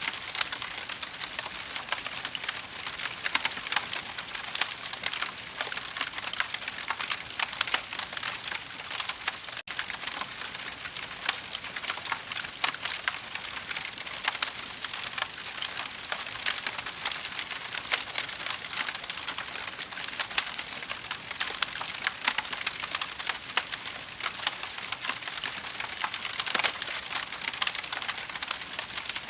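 Fire crackling: a dense, unbroken run of small sharp pops and snaps over a soft hiss.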